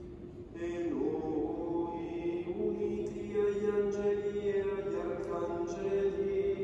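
Chanted singing: voices holding long, steady notes, with a slide in pitch about a second in and a new note a little later.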